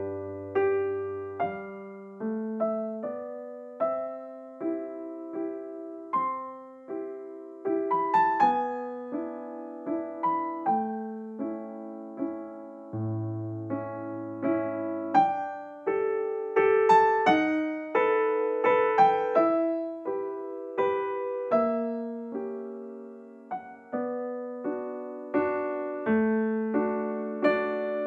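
Background music: a gentle, slow piano piece with soft chords and a simple melody.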